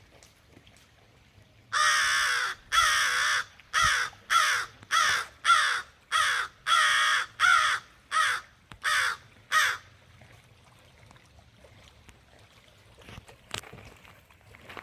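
American crow cawing: a run of about a dozen harsh caws in quick succession, the first one longer, starting about two seconds in and stopping about ten seconds in.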